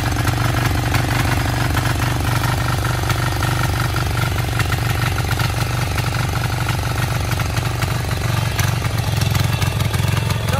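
Trâu Vàng mini tiller's single-cylinder 173F diesel engine running steadily. Near the end the tiller works, its rotary tines churning through the wet mud.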